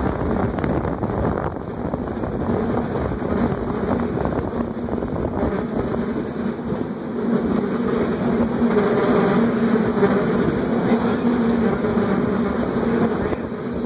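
San Francisco cable car in motion: a steady rumble of the car running on its rails, with a low hum that grows louder about halfway through.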